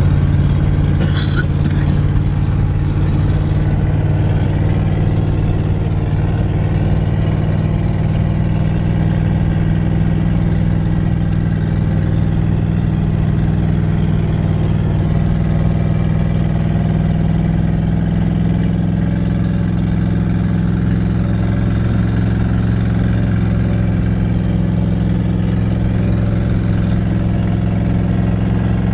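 Vehicle engine running steadily at an even speed, a constant low note that neither rises nor falls.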